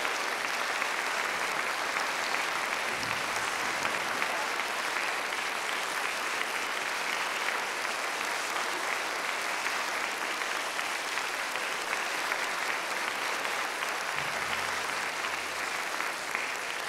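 Concert audience applauding steadily, easing off slightly near the end.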